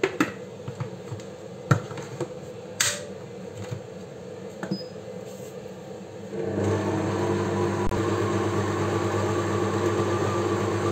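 Cecotec Mambo kitchen robot: a few clicks and knocks as its lid is fitted on the jug, then about six seconds in the motor starts and runs steadily, the blades mixing a cone batter at speed 3.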